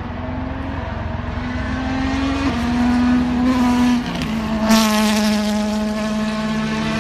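A Ford Fiesta WRC rally car's turbocharged four-cylinder engine is at full throttle, its high, buzzing note stepping in pitch with gear changes and growing louder as it approaches. A little before five seconds in, the sound jumps suddenly louder and harsher as the car passes close by, and then holds a steady high note.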